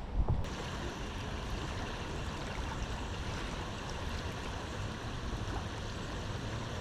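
Steady rush of water, an even hiss with no let-up, with a brief louder knock just after the start.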